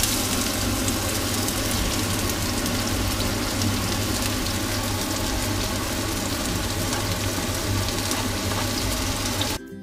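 Diced red onion and garlic sizzling in hot oil in a wok: a steady, even hiss over a low hum, cutting off abruptly near the end.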